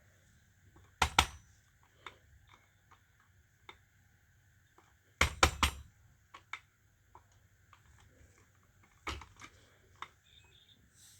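Plastic clicks and knocks from a smoke alarm being handled: a sharp knock about a second in, three quick loud clacks around five seconds, another near nine seconds, and light ticking between them.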